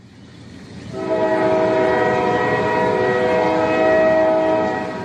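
Train horn sounding one long chord of several tones, held for about four seconds, over the rumble of a moving train that swells in over the first second.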